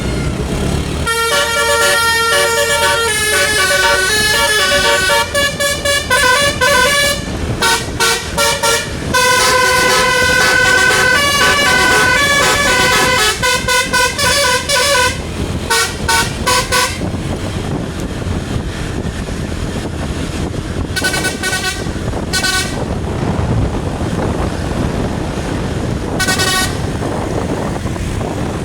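Tour bus's multi-tone telolet basuri horn playing a quick melody of stepped notes for about sixteen seconds, then two short phrases and one brief note near the end, over a steady low rumble.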